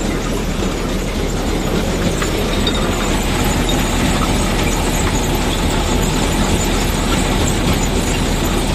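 Ideal combine harvester running with its threshing works engaged: a steady, loud mechanical din of the engine, turning drive chains and sprockets. It is being left running a while so that its bearings warm up.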